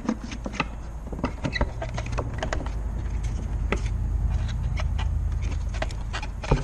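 Hard plastic clicks and knocks from a Renault Scénic II tail-light housing and its bulb holder being handled and fitted, over a low steady rumble that grows louder toward the middle.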